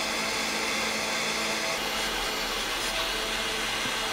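Handheld gas torch burning with a steady hiss, its flame heating a stuck fitting on the engine to loosen it.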